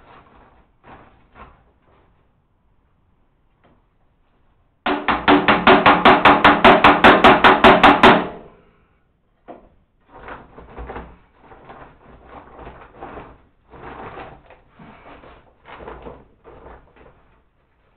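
Rapid knocking on the metal housing of an electric feed mill, about five knocks a second for some three seconds, with the housing ringing under the blows. Softer rustling and clatter follow.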